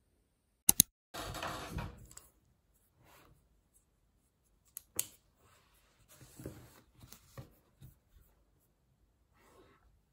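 Small handling sounds at a desk: a pair of sharp clicks, then about a second of papery rustling. Scattered clicks and softer rustles follow later.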